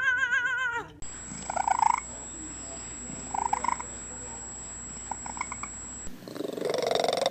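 Domestic cat making short, pulsing purr-like sounds in three brief spurts, then a longer, louder run starting about six seconds in. A wavering pitched tone fills the first second.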